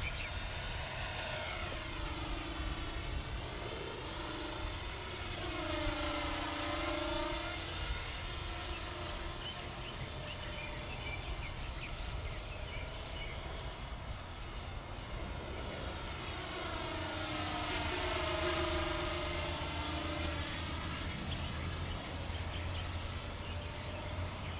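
Four micro electric motors and propellers of a model Northrop XB-35 flying wing whining in flight. The pitch sweeps down and back up twice as the model passes, about a quarter and three quarters of the way through. A steady low wind rumble runs underneath.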